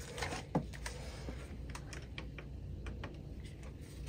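Scattered light clicks and taps of a hand tool working on an oil burner's housing, with one sharper click about half a second in, over a low steady background hum.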